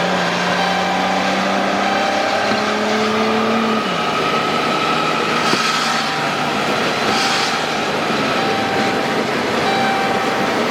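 Car accelerating: the engine climbs in pitch and drops sharply about four seconds in as it shifts up, over a steady rush of road and wind noise. Two short hisses come through near the middle.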